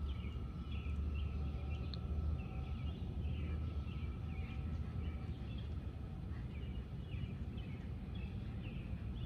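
Small birds chirping again and again in short, quick calls, over a low steady rumble.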